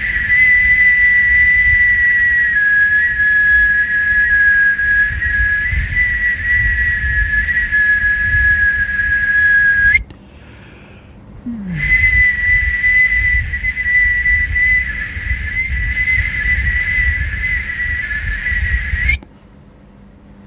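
A man whistling through his lips: two long, steady, high held notes, the first about eleven seconds long, the second about seven and a half, with a short pause for breath between them. Breath noise rushes on the close microphone under the tone.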